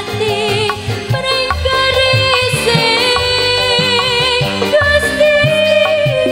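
Female sinden singing a Javanese campursari song, holding long notes with a wavering vibrato, over a campursari ensemble with steady hand-drum strokes.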